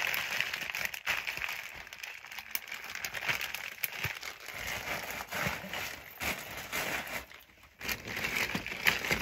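Clear plastic bags of ventilator supplies crinkling and rustling as they are handled and packed, in irregular bursts with a brief pause near the end.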